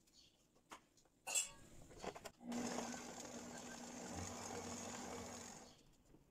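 Stand mixer running steadily for about three seconds with a low, even hum as its beater mixes cocoa powder into a buttery cookie dough, then switching off. A few light clicks and one louder knock come before it starts.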